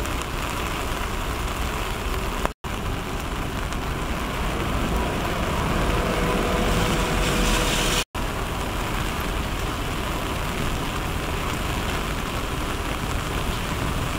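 Steady rain and wind on a wet city street, an even rushing noise. It cuts to silence briefly twice, about two and a half and eight seconds in.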